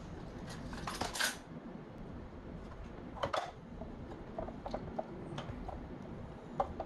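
Red one-handed bar clamp being worked on a clear acrylic box: sharp plastic clicks and knocks, the loudest cluster about a second in, another about three seconds in, light ticks after that, and one more click near the end.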